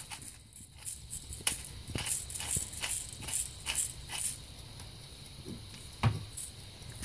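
Salt and pepper being ground and sprinkled into a pan of raw diced onion: a string of irregular dry crackling ticks. A single knock comes about six seconds in.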